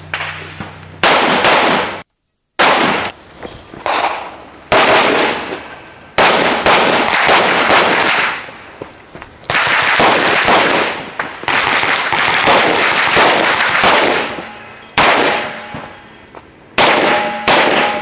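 Strings of pistol shots fired in quick succession during a competition stage run, in bursts with short pauses between them, each burst trailing off in echo.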